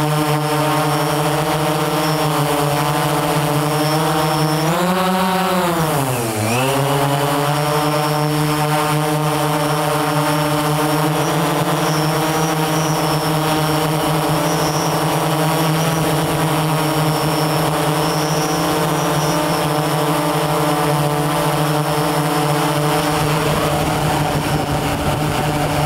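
Camera drone's propellers and motors humming steadily, the pitch swelling up and then dipping sharply about five to six seconds in as the drone changes speed.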